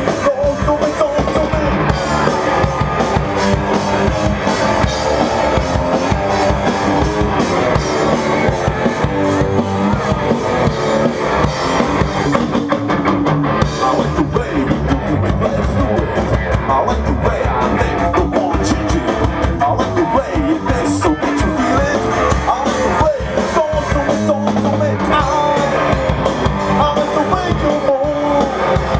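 Rock band playing loudly, drum kit keeping a steady beat under guitars.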